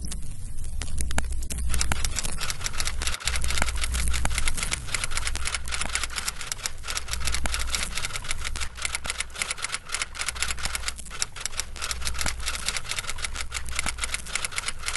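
Rapid, irregular mechanical clicking, many strikes a second, that turns dense about two seconds in, over a low hum that swells and fades.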